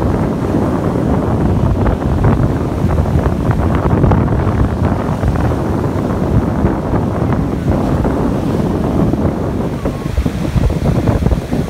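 Wind buffeting the microphone over choppy sea surf breaking and washing onto the beach, a steady rough rumble.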